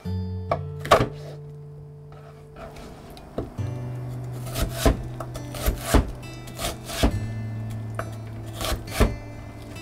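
Knife blades chopping vegetables against a wooden cutting board, over background music. A couple of chef's-knife cuts through sweet pepper come first. From about three seconds in, a wavy crinkle-cut blade dices a white root vegetable, with about a dozen sharp, irregular chops, often in quick pairs.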